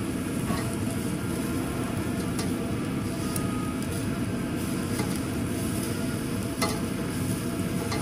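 Slices of beef tongue sizzling on the wire mesh of a charcoal yakiniku grill, over a steady low rushing noise. Metal tongs click lightly against the mesh several times as the slices are turned.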